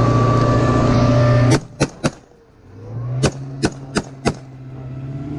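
A loud, steady vehicle engine drone that cuts off abruptly about a second and a half in. It is followed by sharp cracks of gunfire: three in quick succession, then four more about a third of a second apart.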